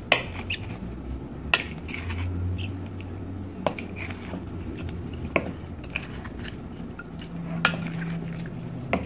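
Wooden spoon stirring and folding potato salad in a glass mixing bowl, with several sharp knocks at irregular intervals as the spoon strikes the side of the bowl.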